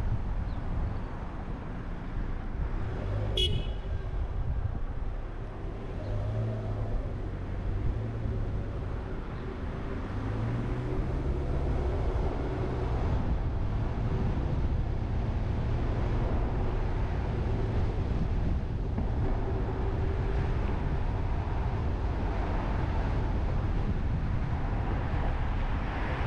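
A car driving slowly through town streets, with steady road and engine noise and the engine hum rising and falling. One brief, sharp, high sound comes about three and a half seconds in.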